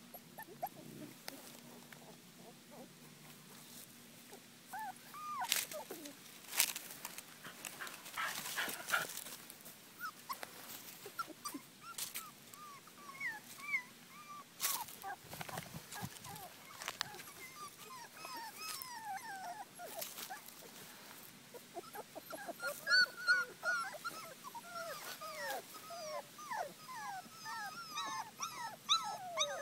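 Brittany puppies whimpering in many short, high-pitched squeaks that come thicker and overlap near the end. There are a few sharp knocks in the first two-thirds.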